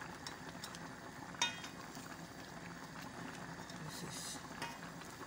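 Soup stock simmering in a metal pot while a metal spoon scoops through it, the spoon striking the pot once with a short metallic clink about a second and a half in.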